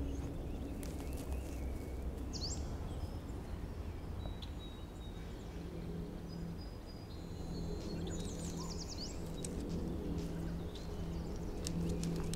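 Forest ambience: a steady low rumble with a few bird chirps, one about two and a half seconds in and a quick run of chirps past the middle.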